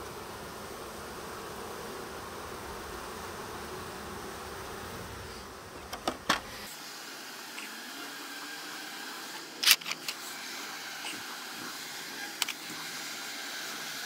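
A captured honey bee swarm buzzing steadily in a cardboard nuc box, with wooden frames knocking against the box as they are set in: two knocks about six seconds in, the loudest cluster near ten seconds, and one more a couple of seconds later.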